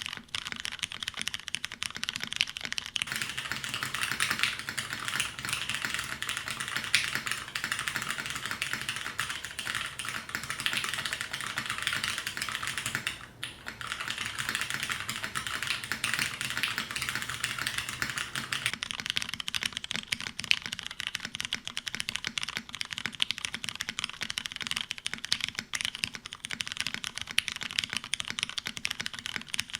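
Continuous fast typing on a custom mechanical keyboard with lubed Ergo Clear tactile switches, an aluminum plate in a copper-bottomed case, and GMK keycaps: a dense run of key clacks with a brief pause about thirteen seconds in.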